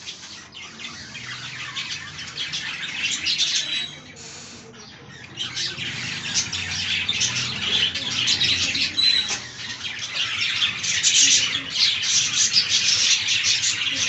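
Flock of budgies chattering and chirping in a dense, continuous warble. It thins out briefly about four seconds in and grows louder over the last few seconds.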